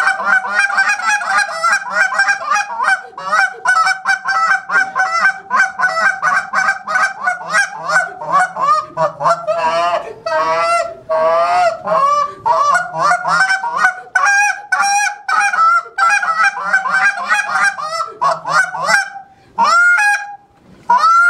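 Hand-held goose call blown in a contest routine: a fast run of short honks and clucks, a few longer wavering calls about ten seconds in, then a few spaced single honks near the end.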